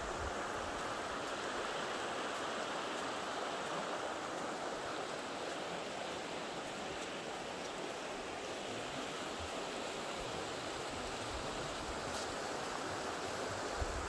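The Virgin River rushing steadily, a continuous even wash of water noise.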